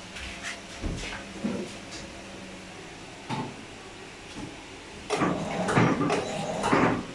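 Steady low hum of machinery with scattered light knocks and clicks, then a loud clattering noise starting about five seconds in and lasting about two seconds.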